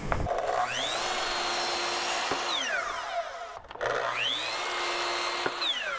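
Sliding compound miter saw cutting door casing twice. Each time the motor whine rises as it spins up, holds steady for a second or two through the cut, then falls away as the blade coasts down.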